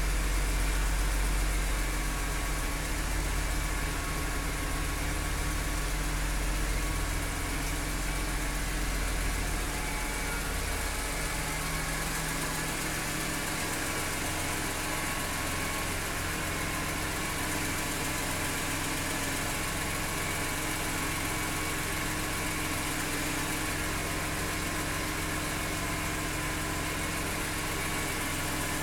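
BMW E46 M3's S54 straight-six engine idling steadily, with the ticking from the engine that the owner is recording. The deep low rumble eases about twelve seconds in.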